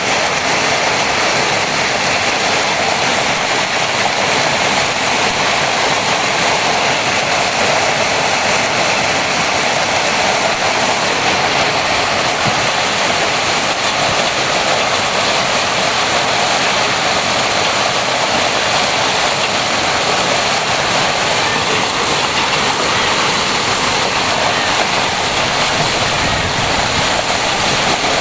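Hailstorm: hail and heavy rain pelting down in a steady, dense hiss.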